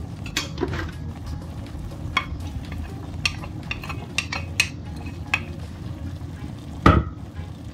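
Wooden spatula scraping chopped onion off a plate into a pot of meat frying in olive oil, with scattered clicks of wood on plate and pot and one louder knock near the end. A steady low frying sizzle runs underneath.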